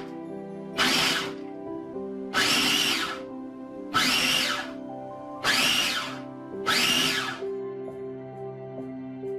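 Food processor pulsed in five short bursts, each under a second, over steady background music.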